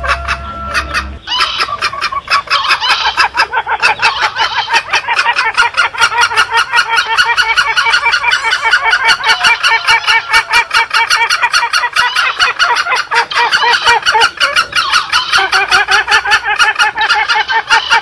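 Green junglefowl lure call: a dense run of rapid, overlapping fowl calls, several a second, continuing without pause.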